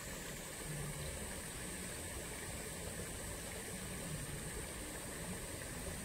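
Steady rush of running water: an even, unbroken hiss with no distinct splashes or other events.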